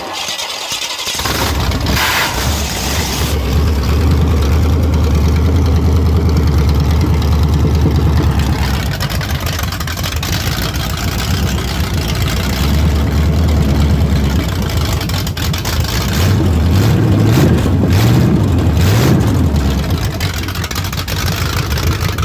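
Small-block Chevy V8, a 350 bored out to 361 cubic inches, fired up for a test run. It catches about a second in and runs loud through open headers with no mufflers, and is revved up and down a few times near the end.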